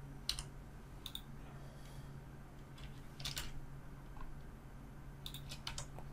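Computer keyboard keys and mouse buttons clicking sparsely: a few single clicks, then a quick run of several near the end, over a faint steady low hum.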